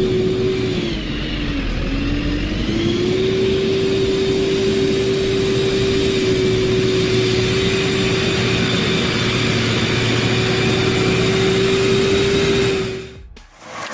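Chainsaw engine running at high revs. Its pitch sags about a second in as it takes load in the cut, then recovers and holds steady until it cuts off near the end.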